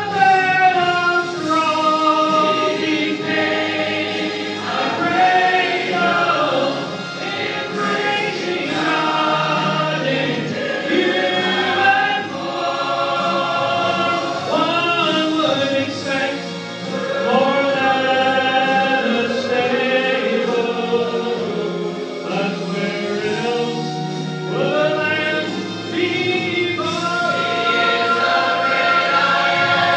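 Church choir singing together, many voices on long held notes.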